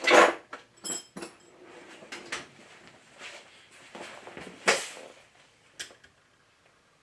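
Small metal hand tools being handled on a workbench: a few separate knocks and clicks, with one short clink that rings briefly about a second in.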